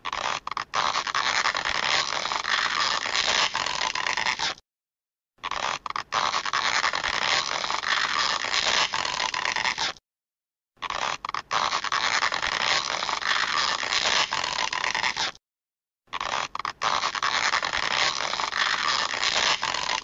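A 'stretching' sound effect: a rough, hissing noise lasting about four and a half seconds, played four times with a short silence between each.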